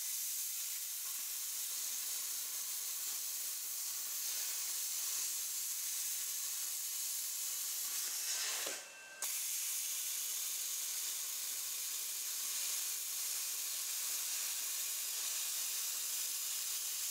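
YesWelder CUT-65DS plasma cutter hissing steadily as its torch cuts through a sheet-metal floor pan. It drops out for about half a second about nine seconds in, then starts again.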